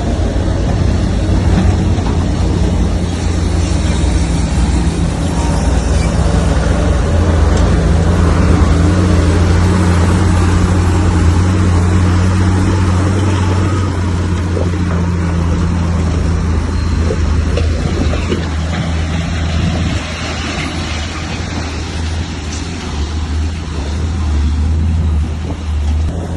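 Bulldozer's diesel engine running steadily under load, a deep steady hum with a slight drop in level about twenty seconds in.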